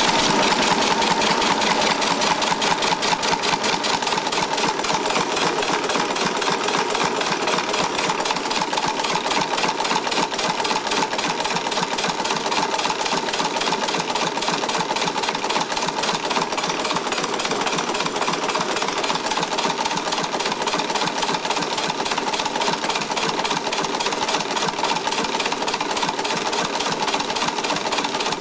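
Homemade two-stage compressed-air engine, converted from an old two-stage air compressor, running steadily on compressed air with a rapid, even, loud clatter. The clatter comes from its heavy valve springs rattling the valves against the cams.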